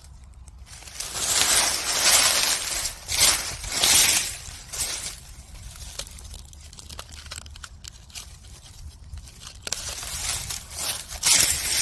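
Rustling and crackling noise that comes in several swells of a second or two, loudest about one to five seconds in and again near the end, with a few small clicks.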